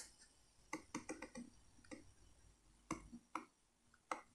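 Near silence broken by a few faint, irregular clicks, a cluster about a second in and single ones near the end: a computer mouse's scroll wheel as the page is scrolled.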